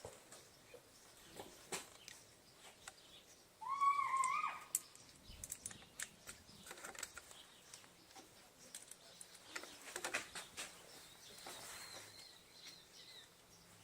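Scattered light clicks and taps of hand work on the motorcycle handlebar. A bird gives one short wavering call about four seconds in, and faint high chirps come near the end.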